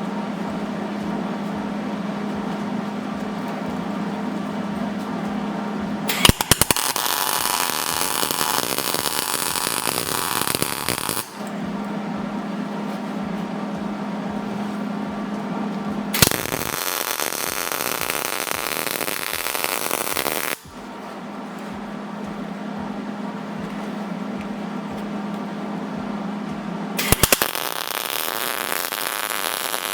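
Electric welder arcing in three crackling bursts of about five, four and three seconds, each starting with a few sharp clicks. The weld joins a bolt to a rusted, stuck head bolt on a flathead V8 block so it can be turned out. A steady low hum fills the gaps between bursts.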